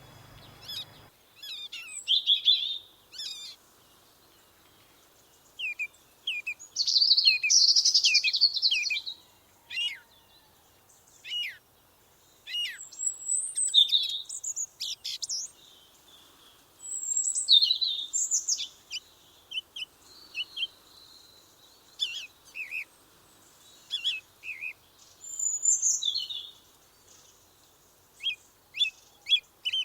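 Songbirds singing and calling: short high chirps, quick sweeping notes and trilled phrases, coming in bursts with brief quiet gaps between them.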